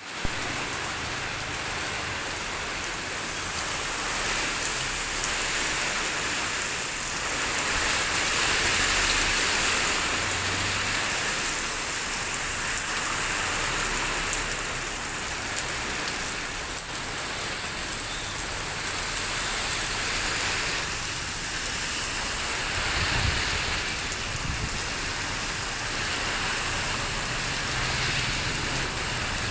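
Steady rain pouring in a storm, a continuous hiss of water, swelling a little around eight to ten seconds in with a brief louder moment just after.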